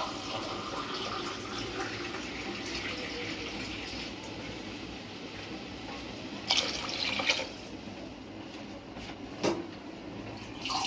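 Water being poured into an aluminium pot of basmati rice on the stove, with the loudest pour about six and a half seconds in. A short knock comes near the end.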